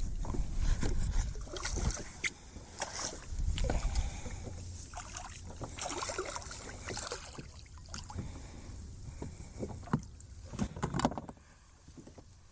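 Handling noise aboard a plastic fishing kayak as a freshly caught redfish is held: scattered knocks and clicks, with a low rumble through the first few seconds.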